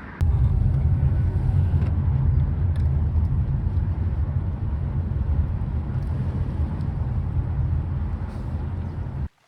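Loud, steady low rumble of a moving vehicle, starting suddenly and cutting off abruptly after about nine seconds.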